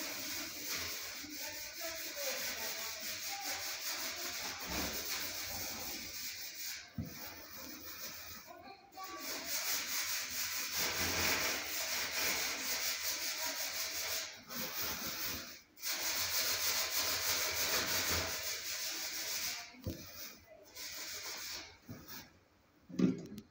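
Scrubbing inside a commercial oven's cavity: a long rubbing noise broken by several short pauses, with a brief knock near the end.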